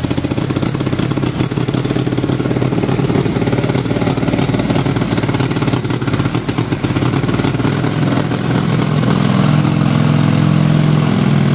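1927 Indian Scout 45's flathead V-twin engine running just after being started, uneven at first and settling into a steadier idle about eight seconds in.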